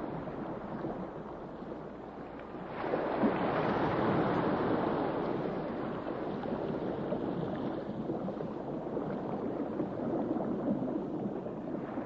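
Steady rushing wash of water, an underwater-style ambience, that swells about three seconds in and then eases a little.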